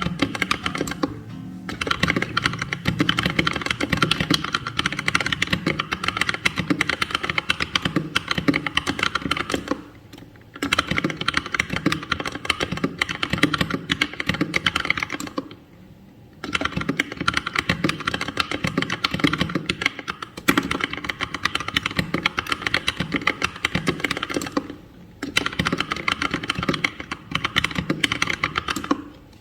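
Typing on a Keychron K2 mechanical keyboard with brown switches and a plastic frame: a continuous fast patter of key clacks, broken by a few short pauses.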